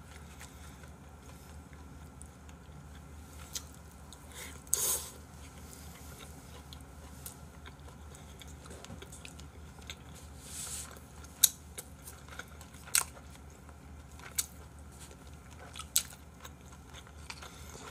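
People eating smoked duck barbecue with chopsticks: quiet chewing, with scattered sharp clicks of chopsticks against bowls and the tray, and two short soft noises.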